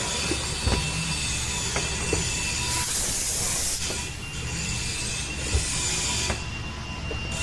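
A short blast of compressed air from a blow gun about three seconds in, with fainter bursts of hissing after it. Under it runs a steady low shop hum, with a few light knocks.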